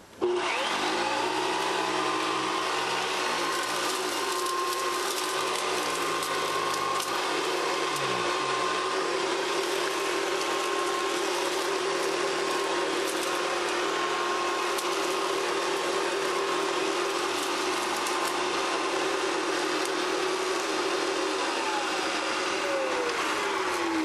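Hoover Decade 80 upright vacuum cleaner switched on, its motor whine rising as it spins up, then running steadily as it is pushed over a rug picking up debris. The pitch of one tone falls near the end.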